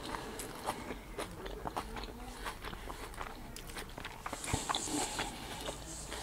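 A person chewing a mouthful of romaine lettuce-wrap taco with pulled pork, a steady run of small mouth clicks and crunches.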